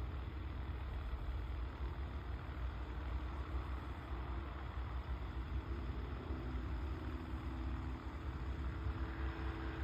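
Wind rumbling on the microphone in an open field, with a faint steady engine hum coming in about halfway through.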